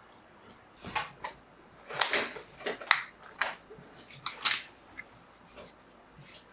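A run of short clicks and knocks from kitchen items being handled, bunched between about one and four and a half seconds in.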